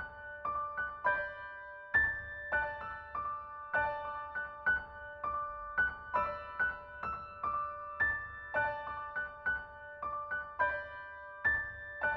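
Background music: a gentle piano melody of repeating notes in a pattern that comes round about every two seconds.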